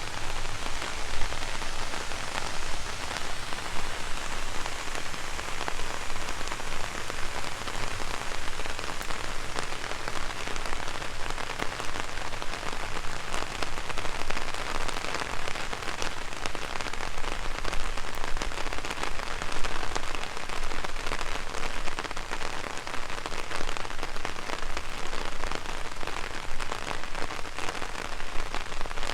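Heavy rain pattering steadily on an umbrella overhead, a dense, even patter of countless drops.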